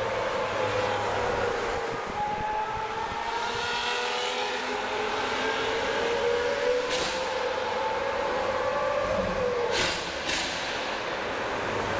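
Lamborghini Aventador V12s with Brilliant Inconel aftermarket exhausts running through a tunnel, heard from inside a following car's cabin. The engine note climbs slowly and then falls away. There is one sharp exhaust pop about seven seconds in and two more close together near the end, the afterfire of the exhaust.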